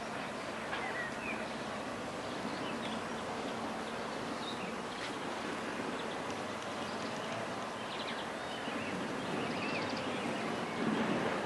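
Outdoor garden ambience: a steady background rush with a few brief, faint bird chirps scattered through it, and a short swell of rumbling noise near the end.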